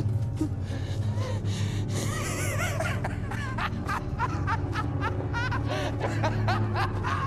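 Film score with a steady low drone, over which a man gasps and cries out in short, breathy bursts as he flees on foot.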